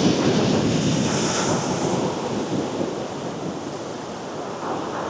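Ocean surf washing in steadily, with wind buffeting the microphone; the rush eases off a little in the second half.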